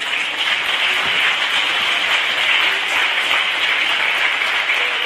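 Audience of children applauding steadily, starting just as the vocal ensemble is introduced.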